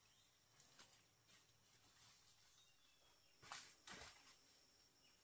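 Near silence: faint outdoor ambience with a steady high hiss, and two soft rustles of leaves and stems being brushed about three and a half and four seconds in.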